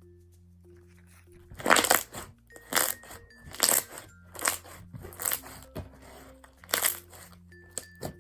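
Foam-bead slime being squeezed and squished by hand, making about seven crunchy, popping squishes roughly a second apart that begin a moment after the start. Soft background music plays under them.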